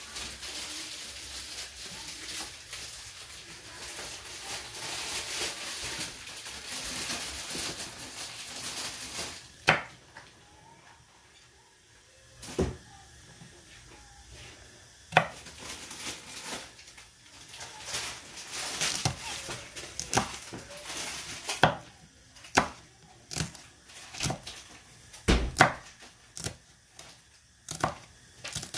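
Tap water running steadily for about the first ten seconds. Then a chef's knife chops green chillies on a wooden cutting board: a few separate knocks seconds apart at first, then quicker strokes toward the end.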